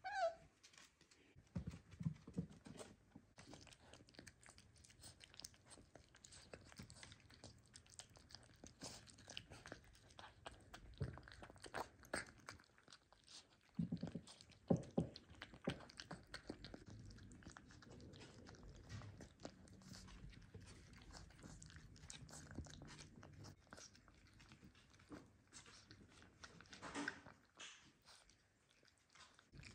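Miniature dachshund puppy eating wet food from a bowl: faint, continuous chewing with many small irregular clicks.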